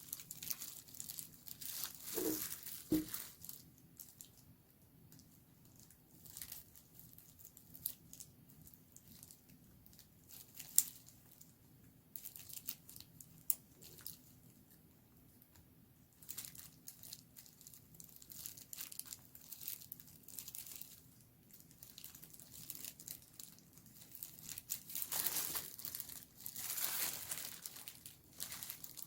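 Packaging crinkling and rustling in irregular bursts as a new smartphone's box and wrapping are handled, with a few small clicks and taps; a sharp click comes about eleven seconds in, and the loudest crinkling comes near the end.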